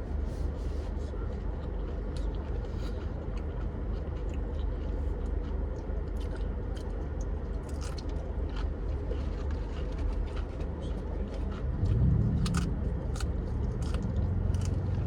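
Close-up chewing and crunching on crisp taco shells filled with crunchy shrimp tempura sushi, with scattered crisp bites over a steady low hum; a louder low drone comes in near the end.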